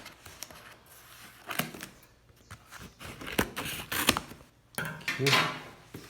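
Cardboard box and packaging being opened by hand: irregular clicks, scrapes and short tearing and rustling noises.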